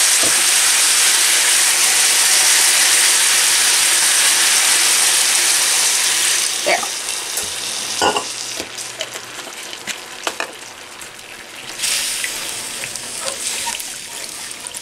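Loud, steady sizzling of water and soy glaze hitting a hot nonstick skillet of browned beef and vegetables. It drops to a softer simmering hiss after about six seconds, with a silicone spatula knocking and scraping as the stew is stirred.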